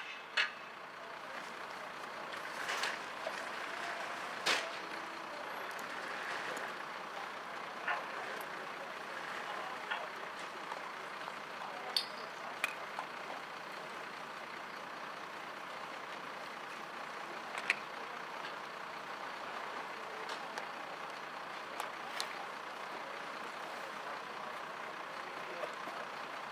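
Fire engine running at a standstill, a steady hum and hiss, with scattered sharp clicks and knocks of handled equipment.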